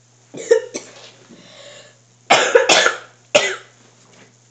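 A boy coughing: two smaller coughs, then a hard fit of three loud coughs about two seconds in.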